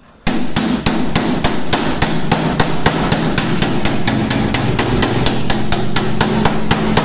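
Body hammer rapidly tapping on a freshly welded steel patch in a Toyota Land Cruiser 40-series body panel, about four to five even blows a second. The blows knock down the high spots that the welding left in the patch.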